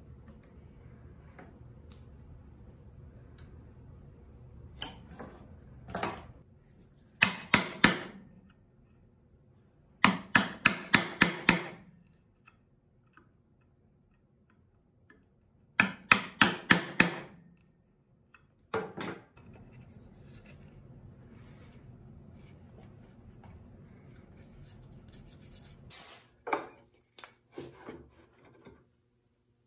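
Hand tools working wood: several short bursts of quick rasping strokes, about four a second, separated by pauses, then a few single scraping strokes near the end.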